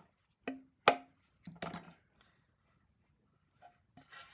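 Wooden chair parts knocking together as a rim section is test-fitted onto its joint: a few sharp wooden knocks, the loudest about a second in, then a quick cluster of taps, and two lighter taps near the end.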